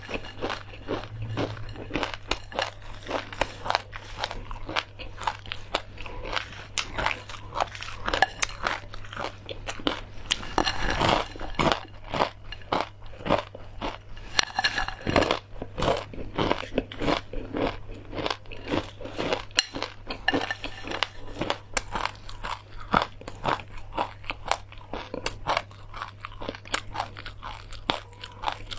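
Close-miked crunching and chewing of crispy fried perilla with seeds and chili crisp: a dense, continuous run of sharp crackles. A low steady hum runs underneath.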